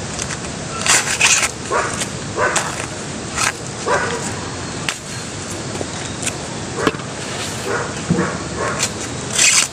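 Corn husks being torn and stripped from an ear of corn by hand: a series of irregular crackling, rustling tears, the loudest about a second in and again near the end.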